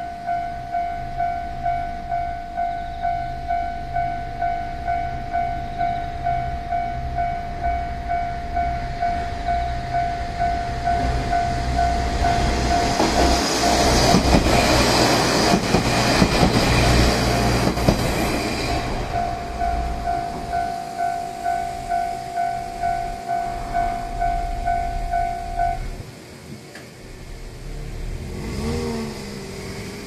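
Japanese level-crossing alarm ringing a steady, rapid ding-ding, about two dings a second. Midway, a slow two-car KiHa 40 / KiHa 47 diesel railcar train passes: its engines and wheels rise to a loud rumble that drowns the bell for several seconds, then fade. The bell stops a few seconds before the end as the crossing clears.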